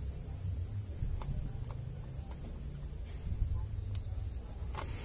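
Steady high-pitched insect chorus in the background. Over it come a few small clicks, the sharpest about four seconds in, as plastic multi-pin wire connectors are handled and pushed together.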